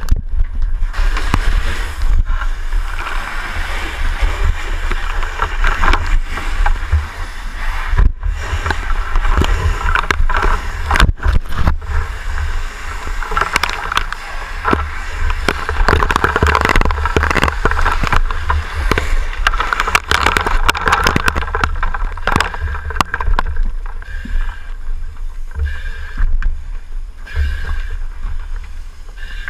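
Rumbling and rustling of a firefighter's body-worn camera rubbing against gear as he moves, with a rushing hiss that swells and fades and scattered clicks and knocks.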